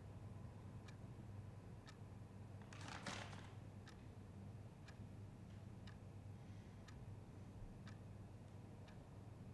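A clock ticking faintly in a quiet room, about one tick a second, over a low steady hum. A brief soft noise comes about three seconds in.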